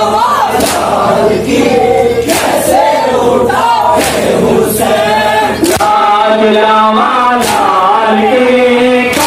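A large group of men chanting a Muharram mourning lament in unison, with sharp slaps sounding over it at irregular intervals, roughly once a second.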